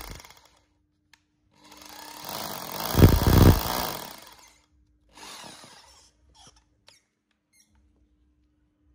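Handheld electric power tool run briefly: it starts under two seconds in, swells to its loudest about three seconds in, and dies away over the next second or so. A second, shorter and quieter run follows, then a few light clicks of handling.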